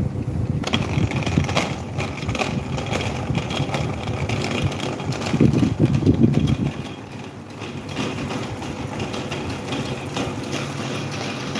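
Electric table fan running, with a faint steady motor hum and its airflow buffeting the microphone in a rough rumble that swells louder for about a second near the middle.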